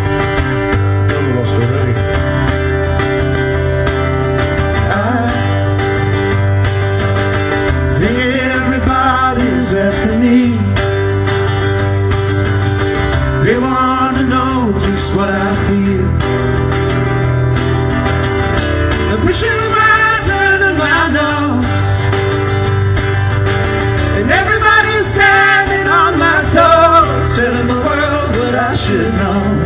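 Acoustic guitar strummed steadily, with male vocals singing over it in phrases.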